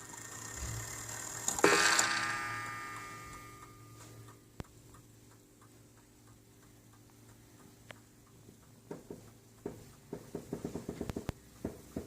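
Enfield mantel clock ticking, its movement running again after cleaning and oiling; about a second and a half in it strikes once with a ringing tone that dies away over a few seconds. A quick run of clicks comes near the end.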